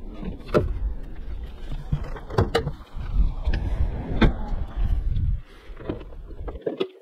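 A few sharp clicks and knocks as a BMW 320i E92's door is opened and its bonnet release and catch are worked, over a low rumble that stops shortly before the end.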